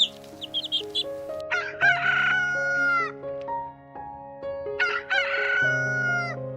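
Rooster crowing twice, each crow about a second and a half long, over steady background music; a run of quick high chirps fills the first second.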